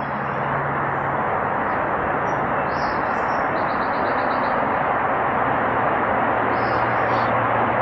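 A steady, loud hiss of even noise, with a faint low hum beneath it and a few faint high chirps.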